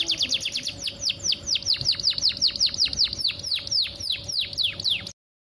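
Domestic canary singing a fast trill of repeated downward-sweeping notes, slowing from about eight to about four notes a second, then cutting off abruptly near the end.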